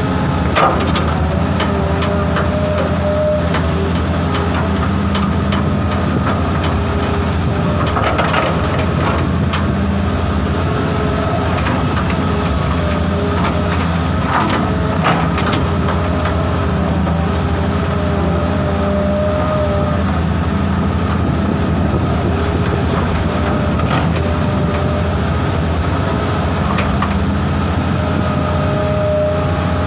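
Diesel engine of a Sumitomo 280FJ1 hydraulic excavator running steadily, with a few brief clanks or knocks now and then.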